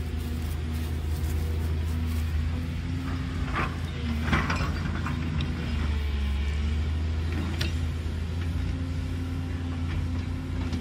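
JCB tracked excavator's diesel engine running steadily under hydraulic load as the machine swings and digs. A few short knocks come about four seconds in and again near eight seconds.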